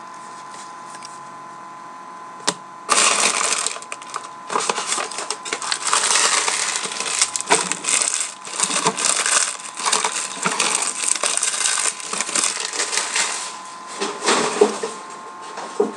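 Crinkling and rustling of a trading-card pack wrapper being torn open and handled. A single click comes about two and a half seconds in, then a dense crackle starts and runs in uneven spurts, thinning out in the last few seconds.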